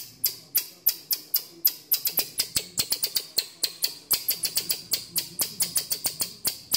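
Common marmoset giving a rapid string of sharp, high-pitched calls, about four or five a second, excited as whipped cream is held out to it.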